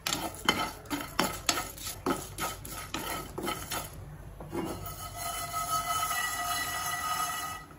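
Spatula stirring whole spices and almonds as they dry-roast in a nonstick frying pan, with short scraping strokes about two or three a second. About four and a half seconds in, this gives way to a steadier rattle with a faint ringing tone as the pan is shaken.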